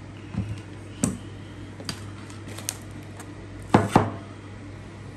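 Scattered knocks and clinks of a bowl and kitchen utensils being handled and set down on a counter and plastic cutting board, the loudest a pair of knocks close together about four seconds in.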